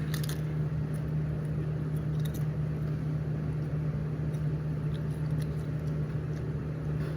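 A steady low hum, with a few faint crunches as potato crisps are bitten and chewed, near the start and again about two seconds in.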